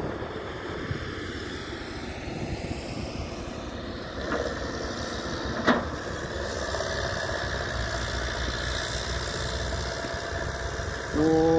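Diesel engines of a crawler excavator and a small bulldozer running steadily as the excavator works to free the bulldozer, which is bogged down in mud. Two sharp knocks come in the middle.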